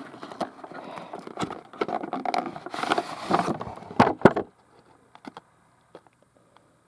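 Rustling packaging and small plastic clicks as a model locomotive is taken out of its box, with two sharp knocks about four seconds in, then only a few faint ticks.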